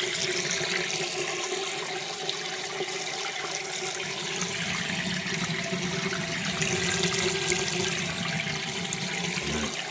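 Sump pump running full tilt, water rushing and churning in its basin with a faint steady hum underneath. It is pumping out rainwater that is backing up into a flooded basement.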